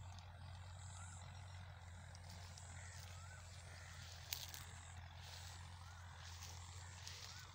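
Quiet outdoor ambience: a steady low hum under a short rising chirp that repeats about every two seconds, with a single click about four seconds in.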